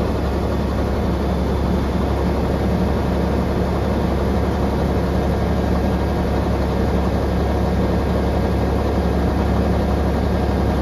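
Volvo A40 articulated dump truck's diesel engine idling steadily, a constant low drone.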